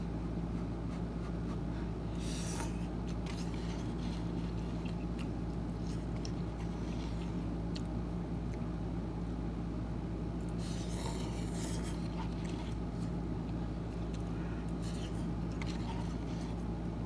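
A fork scraping and stirring noodles in a Cup Noodles cup, with a few short noisy eating sounds about two seconds in and again around eleven seconds, over a steady low hum.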